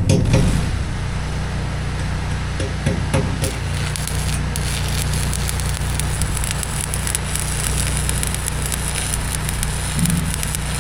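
Electric arc welding on rusty steel fence pipe, welding couplers on: the arc crackles and sizzles steadily over a steady low engine hum.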